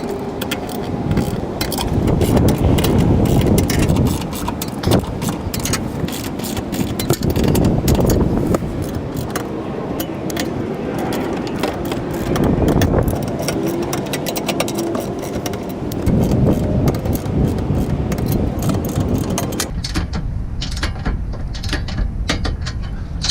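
Ratchet torque wrench clicking rapidly as the side-step bracket bolts are run down and torqued to 17 foot-pounds. The ratcheting stops a few seconds before the end.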